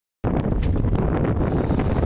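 Strong wind buffeting the microphone, a steady rumbling roar that cuts in suddenly just after the start.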